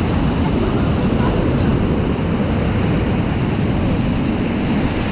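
Steady, loud rush of fast river water around a raft, mixed with wind buffeting the microphone.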